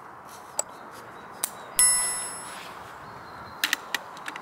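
A single bright metallic ding about two seconds in, ringing out over about a second, with a few faint clicks around it over a steady background hiss.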